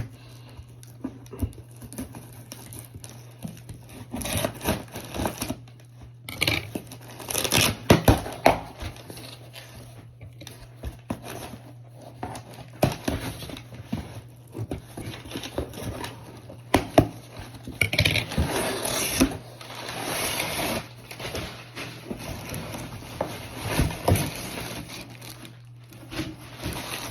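Packaging crinkling and tearing as a handbag is unwrapped, in irregular rustles with sharp clicks and handling knocks.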